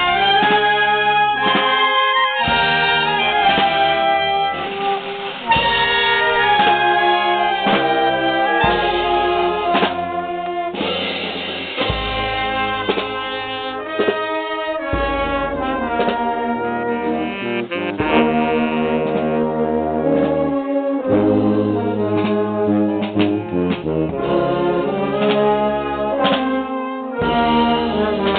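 Italian town wind band (banda) playing a march on the move: clarinets, trumpets and trombones over sousaphone bass notes, continuous throughout.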